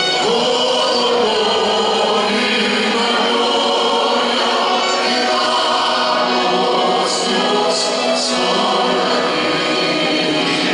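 Large mixed choir of men's and women's voices singing, holding long sustained chords.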